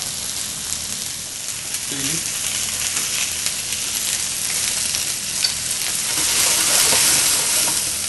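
Wood pigeon breasts sizzling skin side down in a hot frying pan: a steady hiss of frying fat that swells louder about six seconds in.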